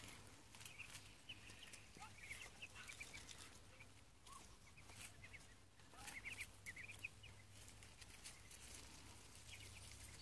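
Ducklings and chicks peeping faintly: short high cheeps, scattered and sometimes in quick little runs.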